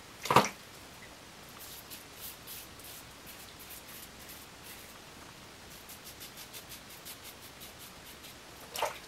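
Double-edge safety razor (Merkur 34C with a Teflon-coated Voskhod blade) scraping through lathered stubble in a run of short, faint, high scratches on the first with-the-grain pass, while the blade still feels not quite sharp. A sharp knock about half a second in and another near the end.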